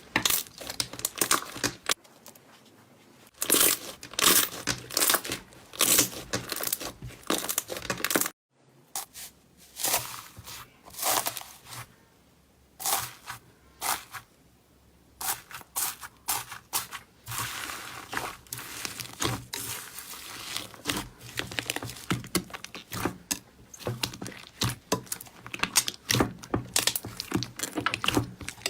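Slime being squeezed and worked by hand, giving bursts of crackling, clicking sounds with short pauses between them and a brief silent break about 8 seconds in.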